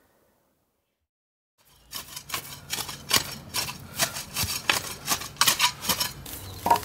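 Silence for about a second and a half, then a spade digging and scraping in flower-bed soil: a fast, uneven run of sharp strikes, several a second, loudest near the end.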